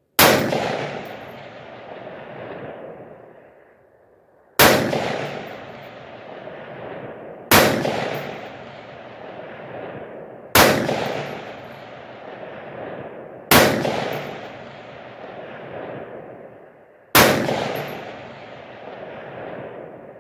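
Six AR-15 rifle shots fired about three to four seconds apart, each sharp crack followed by a long rolling echo that fades over roughly three seconds.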